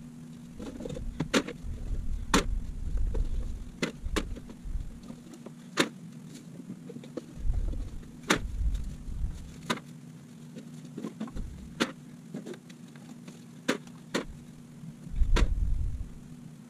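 Empty cans clanking as they are dropped one at a time into a plastic trash bag: about a dozen sharp clacks, unevenly spaced, over a low steady hum and occasional low rumbles.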